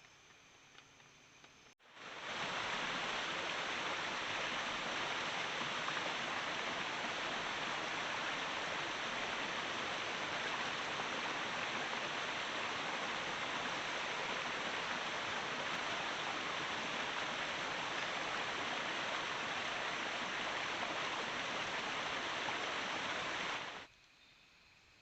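A steady, dense hiss of rushing water that cuts in sharply about two seconds in and stops just as sharply near the end.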